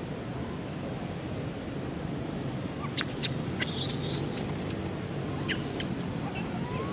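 Macaque squealing three times in high, shrill calls that sweep steeply up and down, the middle one longest, over a steady rushing background noise.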